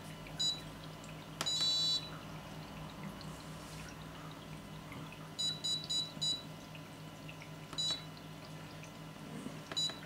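Arduino alarm's buzzer giving short high beeps as keys are pressed on the 4x4 keypad: one beep, then a longer tone about one and a half seconds in as the wrong code is rejected, then a quick run of about five beeps and two more single beeps as the new code is keyed in.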